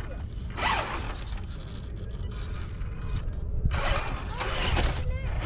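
Radio-controlled rock crawler's electric motor and gears whirring in two short bursts, about half a second in and again near the four-second mark.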